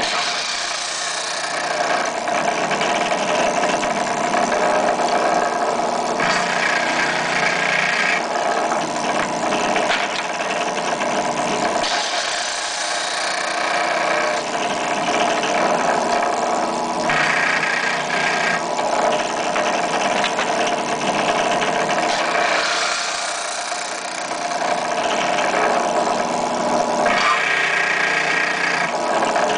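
Benchtop drill press motor running steadily, spinning a Possum Hollow Kwick Trim case trimmer as .223 brass cases are pushed up into the cutter. A harsher, higher cutting tone rises over the motor hum for about two seconds three times, roughly ten seconds apart, as the cutter shaves a case mouth.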